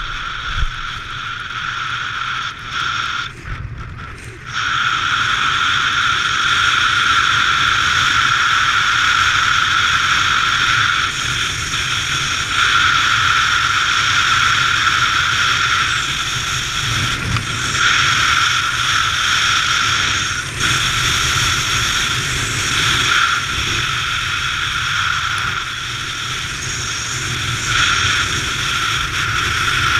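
Loud, steady rush of high-speed airflow over the pilot's camera during a fast, low speedflying run, with a steady whistling tone in the rush. It grows louder about four and a half seconds in and then holds steady.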